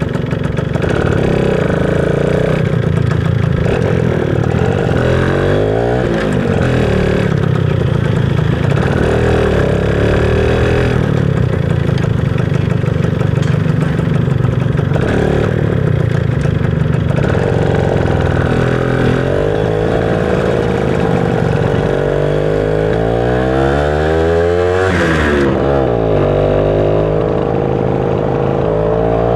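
Yamaha SS Y110 motorcycle engine running under way, its pitch rising and falling several times as the throttle is opened and eased off.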